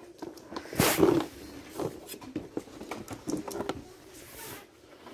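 Handling noise: rustling and light knocks, with a louder rustle about a second in.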